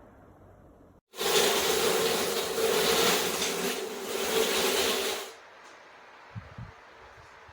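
Rowenta Turbo Silence Extreme pedestal fan running at a high speed: a loud rush of air with a steady hum that starts abruptly about a second in and cuts off after about four seconds. A couple of faint low thumps follow near the end.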